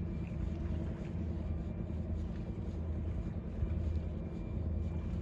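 Steady low engine drone of the passing lake freighter John J. Boland carrying across the water, with some wind on the microphone.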